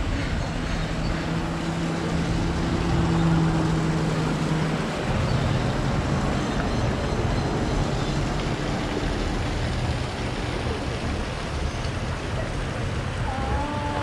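Steady road traffic noise, with a vehicle engine's low hum standing out during the first few seconds.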